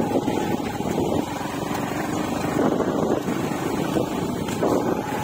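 Motorcycle engine running as the bike rides along a rough dirt track, with noise on the microphone that swells three times.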